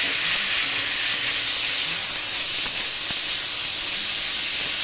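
Green figs sizzling in hot oil in a large kadai just after being added: a loud, steady hiss, with a metal spatula stirring through them.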